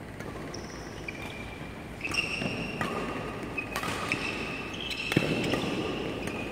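Badminton rally: rackets strike the shuttlecock in three sharp hits about a second and a half apart, while court shoes squeak on the court floor as the players move.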